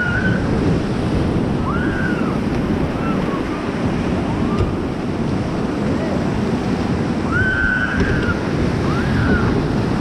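River rapids rushing and churning around an inflatable raft, with wind buffeting the microphone. A few short high cries rise over the water noise, about a second in, near 2 s and twice near the end.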